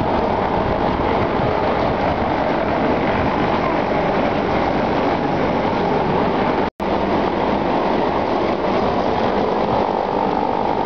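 Trieste–Opicina hybrid tram/cable car running along its track, heard on board: a loud, steady rolling rumble of wheels on rails, broken by a momentary gap of silence a little past the middle.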